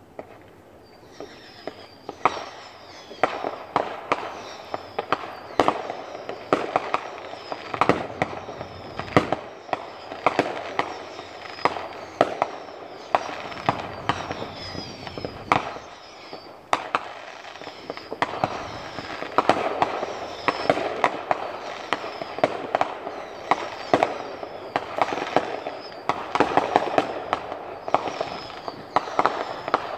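Fireworks display going off in a dense barrage: many sharp bangs a second over a steady crackle, with repeated short falling whistles. It starts about a second in and keeps up without a break.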